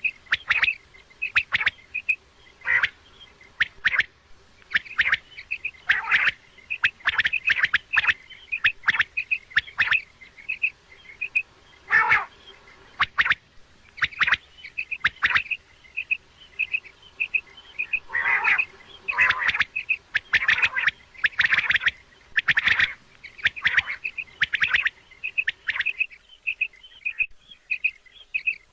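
Common quail calling over and over in quick clusters of short, sharp notes, with a run of rapid, evenly spaced notes near the end.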